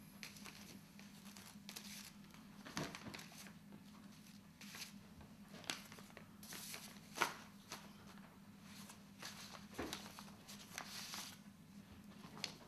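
Paper rustling, crinkling and tearing in scattered short bursts as an envelope is opened and a letter handled, the sharpest crackle a little past halfway. A faint low steady hum sits underneath.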